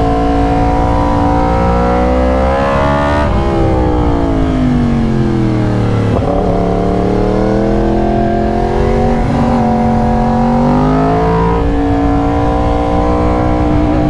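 2022 Yamaha R1's crossplane inline-four through a raw SC-Project exhaust, heard from the rider's seat under way. The revs climb for about three seconds, drop off sharply and wind down for a couple of seconds as the throttle closes, then climb again from about halfway, with brief dips before settling near the end.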